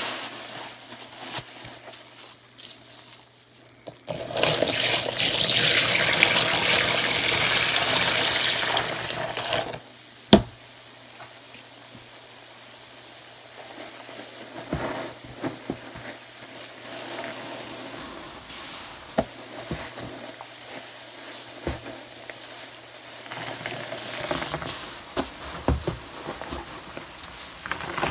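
Soapy sponge squeezed and rubbed by hand, making wet squelching of lather and water. A loud rush of running water lasts from about four seconds in to about ten, followed by quieter squishing with a few sharp wet clicks.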